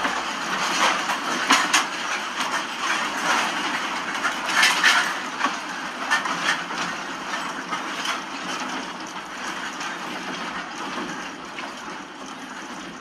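A home and its contents rattling and knocking under strong earthquake shaking: a dense clatter with many sharp knocks that slowly dies down toward the end.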